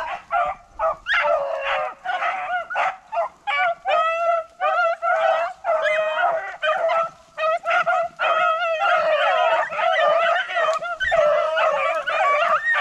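A pack of beagles baying and yelping while running a rabbit: separate broken cries at first, then several voices overlapping almost without a break from about two-thirds of the way in.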